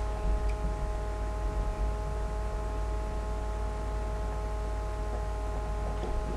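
Steady electrical background hum: several constant tones over a low rumble, with no burps or voices.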